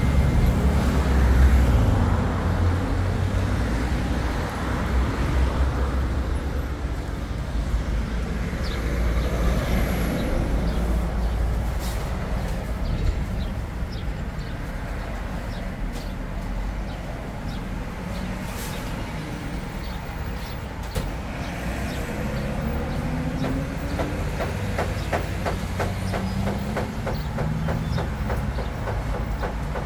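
A vehicle's steady low rumble. In the last several seconds a rising whine and a quick, regular clicking come in, like a rail vehicle pulling away.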